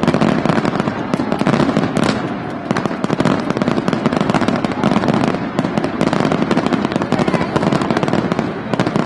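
A dense, continuous barrage of display fireworks: many overlapping bangs and crackles with no pause between them.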